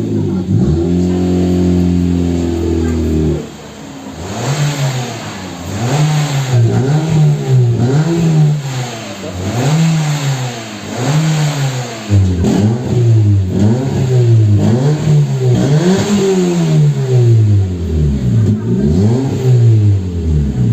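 Hyundai i30 2.0's four-cylinder engine running through a two-inch exhaust diffuser: held steady for about three seconds, then blipped again and again, its pitch rising and falling about once a second. The aftermarket diffuser gives the exhaust its louder, sporty tone.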